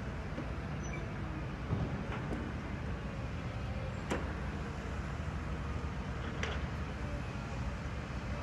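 Radio-controlled model construction machines working: a steady low mechanical hum with three short sharp knocks.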